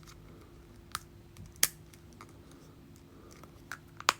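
Small 5mm neodymium magnetic balls clicking together as they are handled: a few sharp separate clicks, the loudest about a second and a half in and a quick cluster near the end.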